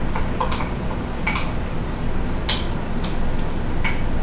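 A spoon ticks and clinks against a glass bowl as chopped mushrooms are scraped out into a cooking pot. There are a handful of separate light taps, about one a second, over a steady low hum.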